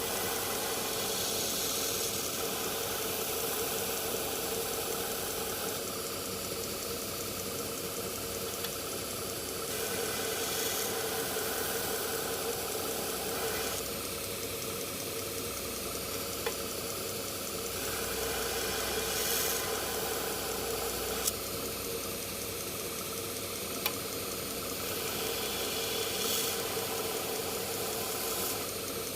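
Belt grinder running with a 120-grit belt while a steel knife blade is ground against it to put in the swedge. The motor hum holds steady under a grinding hiss that swells and eases every few seconds as the blade is pressed on and lifted off. There are a few sharp clicks.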